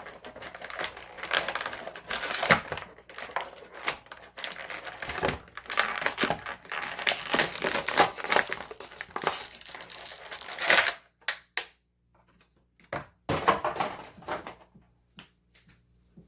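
Plastic packaging of an action figure crinkling and crackling with many small clicks as it is handled and opened. The dense crackling stops about eleven seconds in, followed by a few separate clicks and one more short burst of crinkling.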